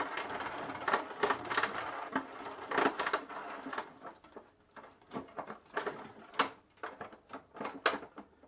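Irregular clicking and knocking from a bicycle's crank and bottom bracket as it is worked, busy for the first few seconds and then sparser, sharper knocks: the sign of a loose bottom bracket.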